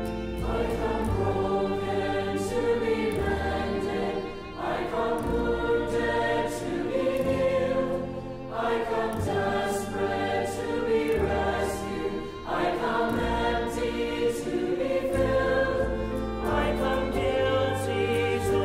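Choral music: a choir singing sustained chords over instrumental backing, the harmony moving on about every two seconds.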